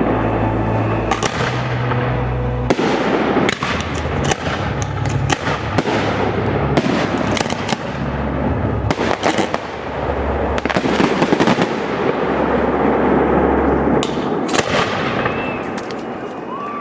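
Fireworks finale barrage: dense, continuous crackling with many sharp bangs of bursting shells following one another closely, easing slightly near the end.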